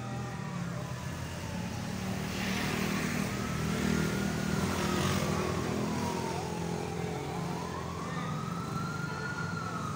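Emergency-vehicle wail siren sliding slowly up and down in pitch, about one rise and fall every five seconds, over road traffic engine noise that swells in the middle.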